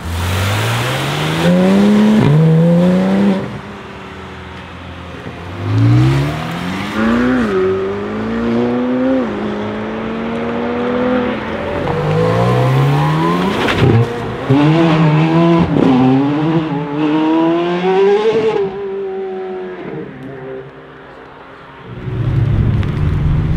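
McLaren 720S twin-turbo V8 accelerating hard in several separate runs, its pitch climbing and stepping down at each upshift. About 22 seconds in comes a steady, loud low rumble.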